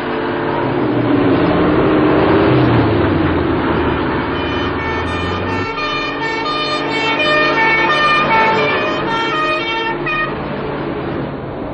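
Old fire engine sounding its siren as it drives out, wavering, gliding tones over the truck's engine.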